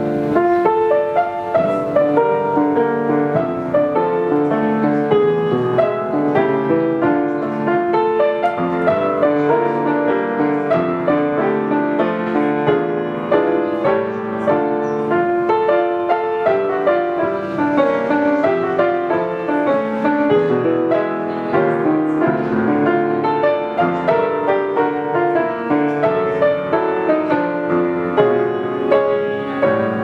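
A solo piece played on a 19th-century Schröder grand piano, a continuous stream of quickly changing notes over a sustained bass.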